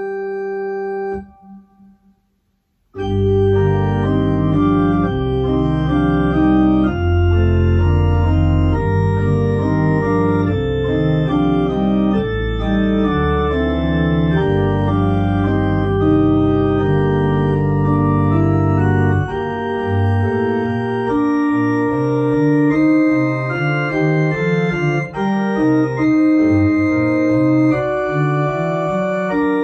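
Two-manual electronic organ playing chords. A held chord ends about a second in, and after a short silence the playing starts again with deep bass notes underneath. The bass drops out about two-thirds of the way through while the chords go on.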